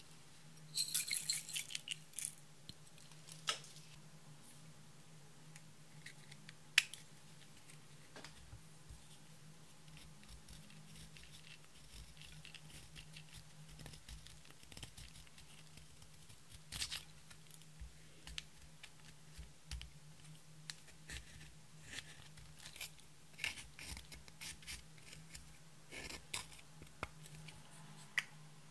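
Glitter and sequins shaken from a small plastic jar into a glass bowl, a brief crisp rattle about a second in, followed by a few sharp clicks. Through the second half a plastic spatula scrapes and crumbles pressed eyeshadow out of its pan, light scratchy ticks over a faint steady low hum.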